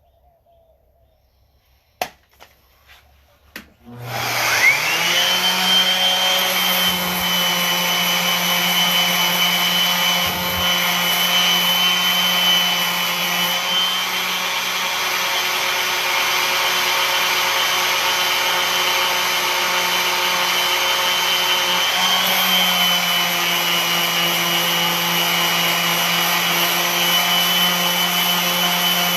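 A few sharp clicks, then an electric sander with 80-grit paper starts with a rising whine and runs steadily while sanding the wood of a bass neck's headstock. Its pitch sags briefly about two-thirds of the way through as it is pressed into the work.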